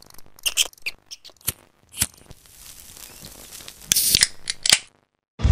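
Title-card sound effects for a glitching animated logo: a scatter of sharp clicks and scratchy, tearing noises, then a rising hiss and two harsh bursts about a second in from the end, cut off by a brief silence.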